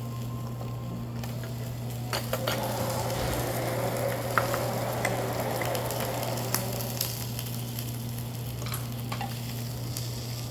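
Beef sizzling on a tabletop grill, the frying crackle swelling about two seconds in and dotted with sharp pops, over a steady low hum.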